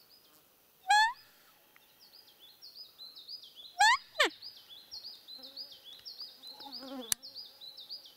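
A roe deer call squeaking twice: a short rising squeak about a second in, then a louder one about four seconds in that rises and falls. Behind it a songbird repeats a high falling note about twice a second, and an insect buzzes close by near the end.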